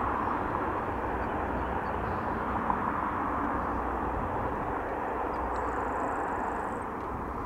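De Havilland Canada Dash 7's four PT6A turboprop engines and propellers running as the aircraft rolls out just after touchdown: a steady rushing drone that eases slightly toward the end.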